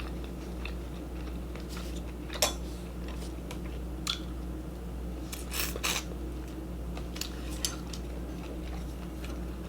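Close-miked eating of ramen and shrimp: scattered sharp clicks and scrapes of a utensil against a dish, over a steady low hum.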